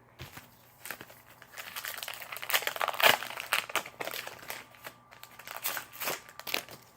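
Plastic wrapper of a Topps Heritage baseball card pack crinkling and tearing as the pack is opened, in irregular rustling bursts, loudest about three seconds in.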